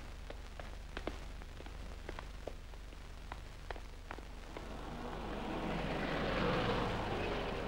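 Worn film soundtrack noise: a steady low hum with scattered irregular clicks and crackles. A noisy wash swells up about five seconds in.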